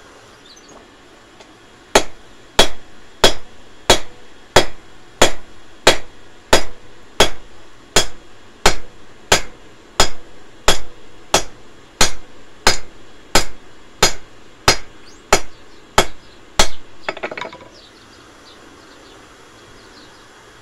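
Hand hammer striking a hot steel bar on an anvil, forging a tent peg: about 25 evenly paced blows, a little under two a second, each ringing briefly. The blows start about two seconds in and stop with a short clatter a few seconds before the end.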